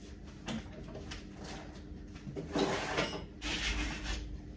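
A window being opened by hand: a few clicks and knocks, then, from about halfway in, louder rattling and scraping from the handle and sash as it swings open.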